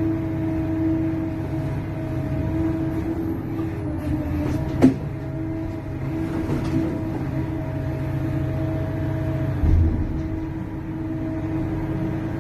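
Large excavator running steadily, a low rumble with a steady hum over it. There is a sharp clank about five seconds in and a low thump near the end.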